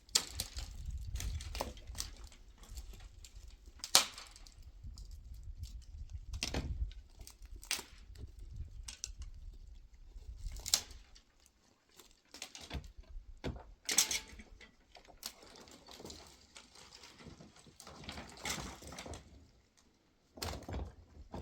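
Scattered knocks and clicks at irregular intervals, a few of them sharper and louder, over a low rumble in the first half.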